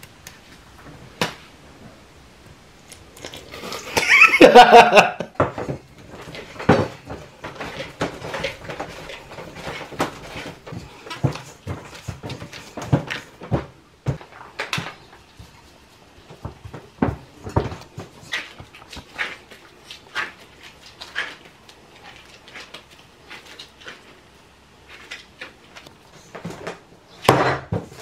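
An animal's drawn-out cry about four seconds in, followed by many scattered light clicks and knocks, with a louder knock near the end.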